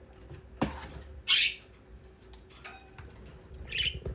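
Pet parrots calling: one loud, harsh squawk about a second in and a shorter one near the end, with a few faint chirps between. A light knock comes just before the first squawk.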